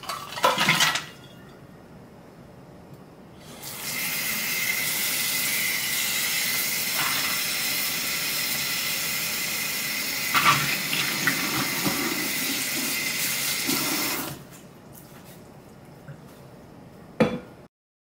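A metal tumbler clatters into a sink. Then a kitchen faucet runs water into the sink for about ten seconds, with a metallic clink partway through, and stops. A single click comes near the end.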